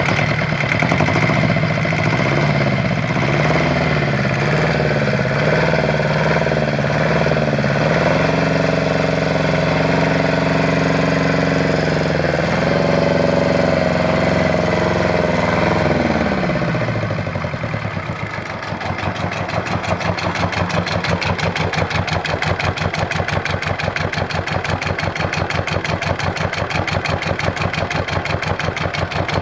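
Isuzu 2AB1 two-cylinder marine diesel running on a test stand. It is held at raised revs, then throttled back a little past halfway and settles to a steady idle with an even diesel clatter.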